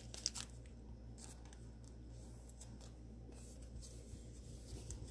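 Faint rustling, crinkling and light clicks of trading cards, plastic sleeves and foil pack wrappers being handled, growing busier in the second half, over a steady low electrical hum.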